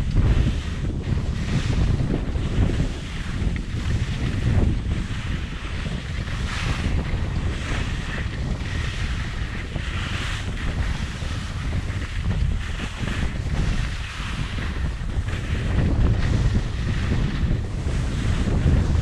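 Wind rushing over a helmet-mounted GoPro microphone on a fast ski descent, giving a heavy, steady low rumble. Over it, the hiss of skis scraping the snow swells and fades with the turns.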